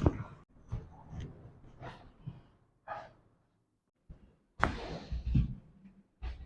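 A person's sighs and breaths during a chiropractic treatment, with a sharp click at the very start. A sudden loud breathy burst comes about four and a half seconds in, followed by more short breaths and knocks near the end.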